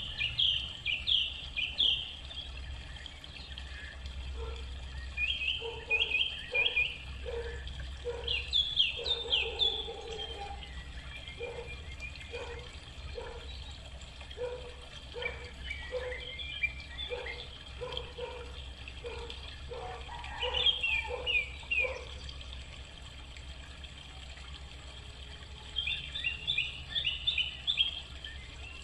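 Birds chirping outdoors: bursts of quick high chirps every few seconds, with a lower call note repeating about twice a second through the middle, over a steady low rumble.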